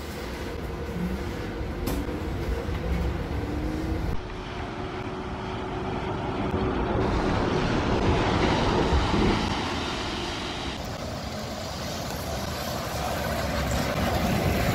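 Interior running noise of a city bus in motion, with a faint motor whine rising in pitch in the first few seconds as it gathers speed. The sound changes abruptly a few times to other vehicle running noise, ending with a city bus driving past.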